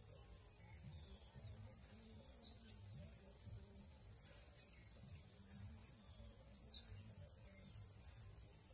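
Steady high-pitched trill of insects, with a faint even ticking beneath it. A bird gives two short, falling chirps, about two seconds in and again about four seconds later.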